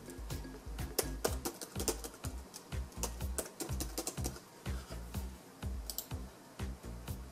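Computer keyboard keys clacking as a password is typed, in a fast run and then a shorter second run about five to six seconds in, over background music with a steady beat.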